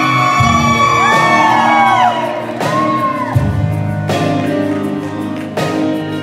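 Live acoustic band performance: acoustic guitars and stage keyboard over a steady bass, with hand percussion marking the beat. High voices slide up and down in pitch during the first three seconds.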